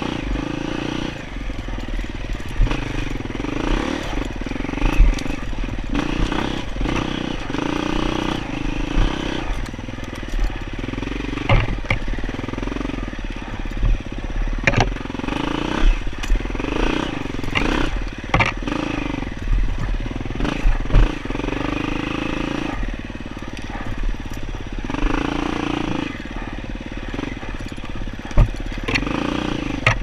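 Dirt bike engine revving up and down over and over as the rider works the throttle along a rough trail, with occasional sharp knocks and clatter.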